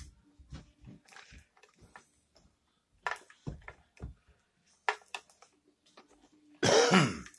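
Plastic and foil wrapping of a Mini Brands capsule crinkling and clicking in scattered short bursts as it is peeled apart, then a short, loud cry with a sliding pitch near the end.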